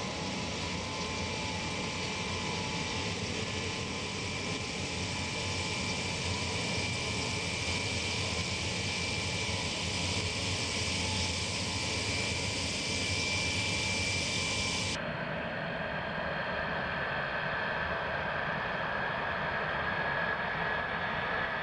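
Jet airliner engines running at a distance: a steady rushing noise with a thin high whine. About fifteen seconds in the sound changes abruptly, with less hiss and a lower whine.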